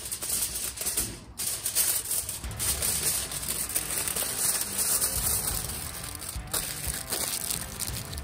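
Aluminium foil crinkling and rustling as a sheet is folded and wrapped by hand around a potato, with upbeat background music.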